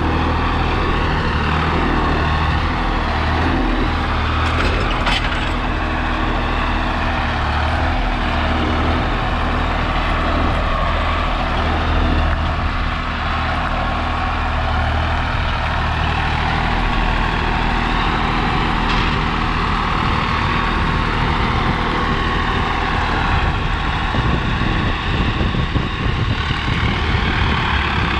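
Swaraj 744 FE tractor's three-cylinder diesel engine running steadily under load in third gear, pulling a seven-tine cultivator through dry stubble.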